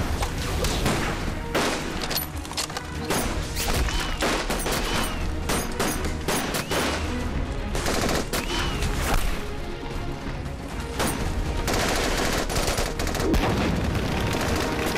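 Heavy sustained gunfire: many guns firing at once, rapid overlapping shots with machine-gun bursts.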